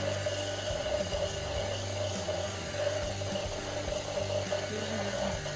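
Aerosol can hissing steadily as its gas is sprayed through the nozzle into a plastic cola bottle.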